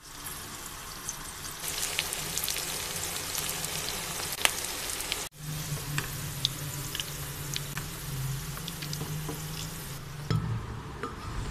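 Sliced onions frying in hot oil in a karahi, a steady sizzle with scattered crackles and pops as they cook toward golden. Near the end the sizzle gives way to a few knocks.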